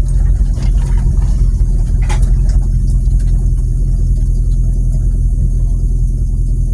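Car engine idling, heard from inside a bare cabin with no door seals and holes in the body: a steady, loud, low drone.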